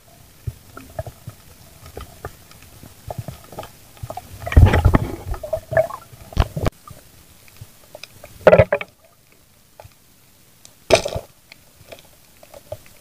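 Muffled underwater noise of a diver's camera and spear gear: scattered small knocks and clicks, with one loud rumbling burst about a third of the way in and two shorter bursts later.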